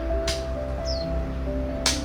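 Background music of soft held notes with a bird chirping once, about a second in. Two sharp clicks, one shortly after the start and one near the end.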